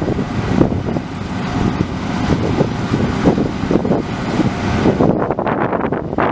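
Deutz-Fahr 4068 HTS combine harvester running while it harvests barley, a loud steady mechanical noise, with wind buffeting the microphone.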